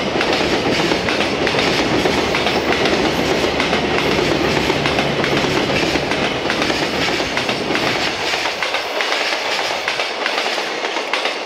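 Container wagons of a freight train rolling past on the rails with a steady wheel-on-rail rumble. The low rumble thins out near the end as the last wagons go by.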